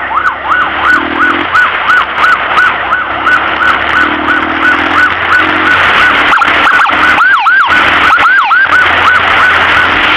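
Ambulance siren on yelp: a fast rising-and-falling tone, about four sweeps a second, over steady road noise. A few short lower tones cut in, and about seven seconds in the sweeps briefly slow and dip deeper.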